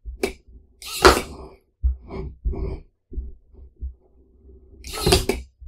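Cam-switched small electric motor working one string-driven wooden finger of an automaton hand, as a hand-turned pinwheel trips its switches: a few sharp clicks and knocks, loudest about a second in and near the end, with a faint steady motor hum between them.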